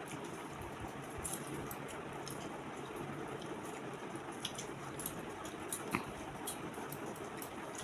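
Faint sounds of people eating rice and fish curry by hand: scattered small wet clicks and smacks over a steady background hiss, one slightly louder click about six seconds in.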